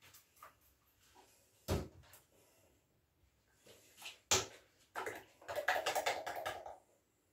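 Plastic bottles and a plastic bowl being handled and set down: two sharp knocks, then a quick, rapid rattling run lasting about two seconds near the end.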